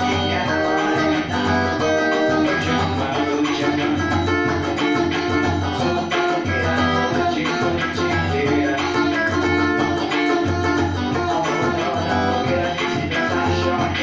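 Xote music: a guitar picking a melody over a steady beat and bass line.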